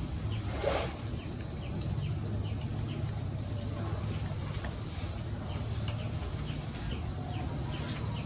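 Steady high-pitched drone of insects over a low hum, with faint scattered ticks, and a brief call about a second in.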